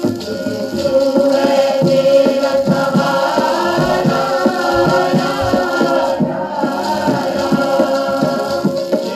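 Choir singing a Hindi Christian hymn over a steady held drone note and an even percussion beat, played back from a 78 rpm shellac record on period equipment and picked up by an open-air microphone.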